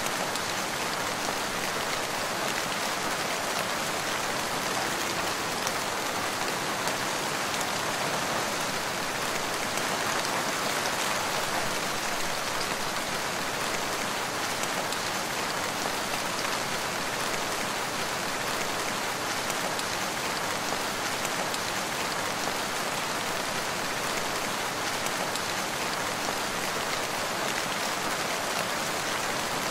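Steady rain falling, an even hiss of many drops that holds constant without pause.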